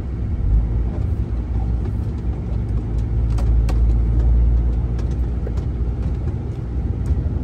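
Tractor-trailer's diesel engine and road noise heard from inside the cab while driving, a steady low rumble that swells slightly about halfway through, with a few light clicks and rattles.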